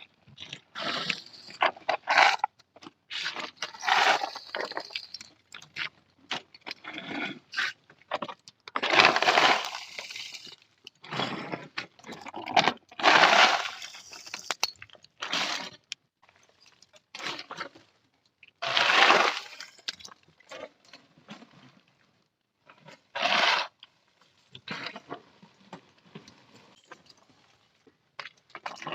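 Charcoal being broken and handled: irregular crunching and cracking, in noisy bursts of up to about a second and a half with short pauses between them.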